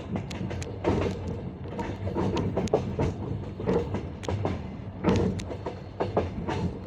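Train wheels clattering over the joints of jointed (bolted) rail track: a clickety-clack group of sharp knocks about once a second, over a steady low rumble of the moving carriage.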